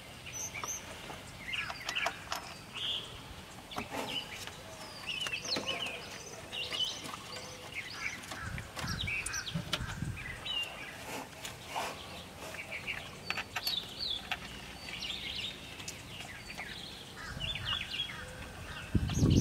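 Small birds chirping and singing in short repeated phrases throughout, with scattered light clicks from the thermostat housing and bolts being handled.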